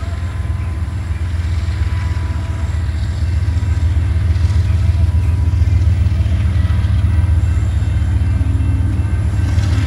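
Freight train cars rolling past on the rails: a loud, steady low rumble that grows slowly louder, with faint steady ringing tones above it.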